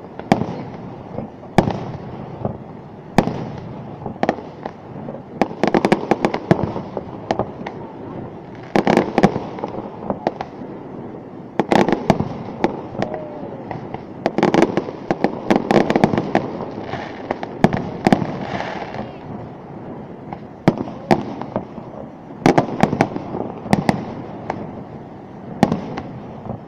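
Fireworks display: aerial shells bursting overhead, many sharp bangs, often in quick clusters, every second or two.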